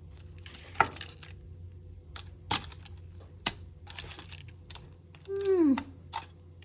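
A baking tray and utensils being handled: several sharp separate clinks and knocks. About five seconds in, a short falling voice sound, like an appreciative 'mmm'.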